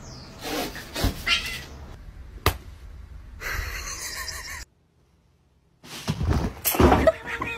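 Household cat sounds, with two sharp knocks in the first half. There is a short silent break near the middle, and louder animal sounds follow it.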